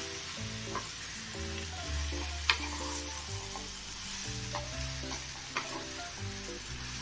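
Brinjal pieces sizzling in a non-stick kadai while a wooden spatula stirs and turns them, with a few knocks of the spatula against the pan; the sharpest comes about two and a half seconds in.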